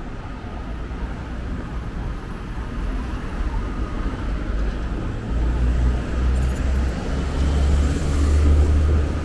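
Road traffic: a vehicle's low engine rumble grows louder over the second half and is loudest just before the end.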